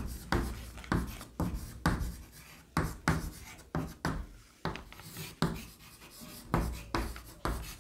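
Handwriting: a run of short writing strokes scratching across a writing surface, about two a second.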